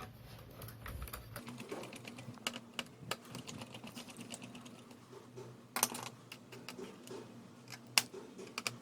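Small irregular clicks and taps of a screwdriver and fingers working on the plastic underside of a Dell Inspiron 15 3000 laptop while its CD-drive screw is taken out, with two sharper knocks about six and eight seconds in.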